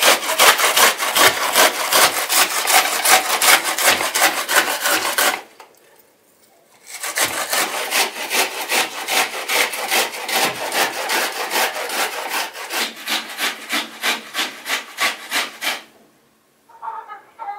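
Onion being grated on a stainless-steel box grater: even rasping strokes, about three or four a second. The strokes stop briefly a little past five seconds in, then resume somewhat quieter.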